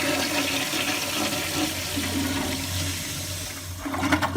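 Toilet flushing: a steady rush of water that eases a little toward the end, with a few sharp clatters just before the end.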